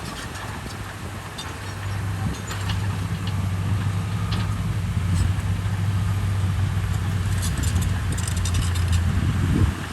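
Komatsu bulldozer's diesel engine running with a steady low drone, broken by scattered metallic clinks and clanks, with a cluster of them near the end.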